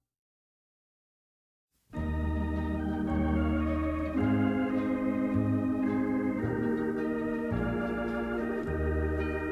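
Dead silence for about two seconds, then an organ starts playing a hymn: sustained chords over a bass line that changes every half second or so.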